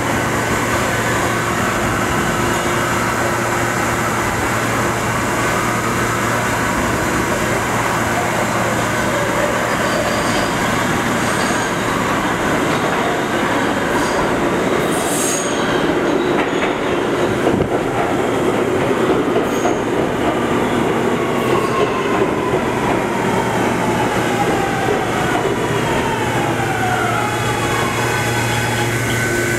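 New York City Subway R211A train pulling into a station and braking to a stop, with the rumble and rattle of its wheels on the rails. There is a brief high wheel squeal about halfway through. Over the last several seconds the electric propulsion's whine falls in pitch as the train slows to a stand.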